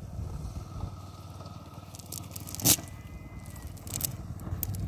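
Cast net being hauled out of the water onto a concrete bank: the mesh scraping on the concrete and its sinkers clicking, with one sharp click about two and a half seconds in.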